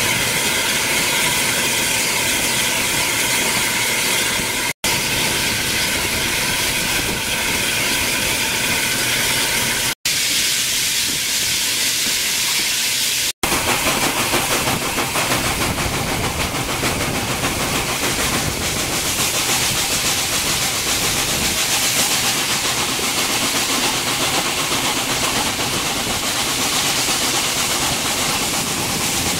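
Steam locomotive hissing steadily as it lets off steam, broken by three brief dropouts in the first half; before the last dropout a few faint steady tones sit under the hiss.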